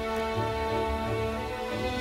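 Background film-score music with long held notes over a soft low pulse.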